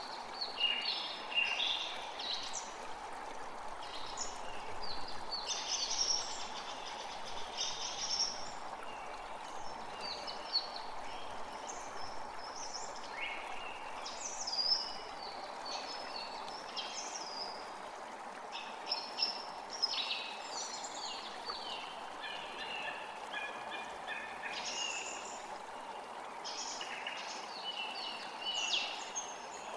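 Several songbirds singing and calling in quick, overlapping phrases over a steady rushing background noise.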